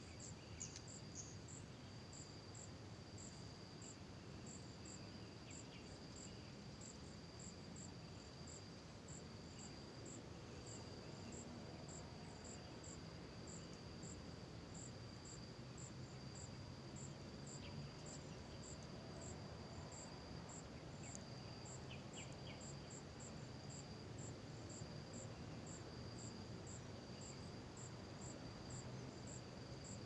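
Faint insects calling: one holds a steady high trill while another chirps in an even rhythm, about one and a half chirps a second.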